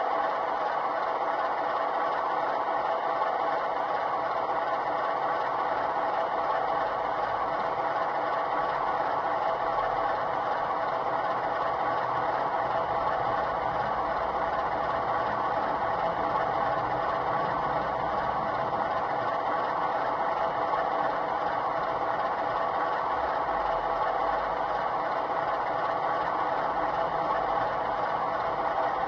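Sound-fitted model diesel locomotive idling: a steady engine sound played through the model's small speaker.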